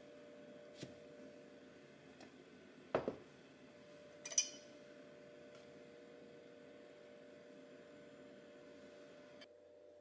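A steady low hum in a quiet room, with a small tap about a second in, a double knock about three seconds in and a sharper click a second or so later.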